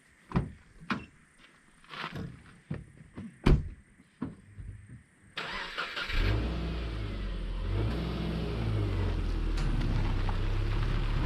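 A few scattered footsteps, then about six seconds in a car engine starts and keeps running steadily.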